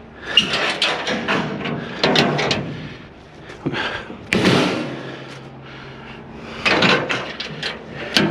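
Clanking and scraping as a trailer gate is handled, in several separate bursts of clatter spread over a few seconds.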